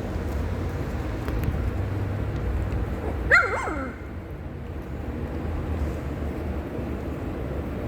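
A retriever puppy about three weeks old gives one short yelp that falls in pitch, about three seconds in, over a steady low hum.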